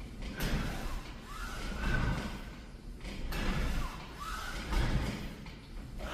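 kPulley flywheel cable machine worked through two-arm rows: the flywheel and rope whir up with each pull and rewind, surging about every one and a half seconds with a rising whine over a low rumble and a few sharp clicks.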